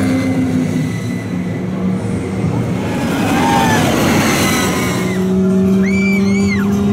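Radiator Springs Racers ride vehicle racing along its track, a steady low hum under a rush of wind that swells in the middle. Near the end come two short high rising-and-falling whoops.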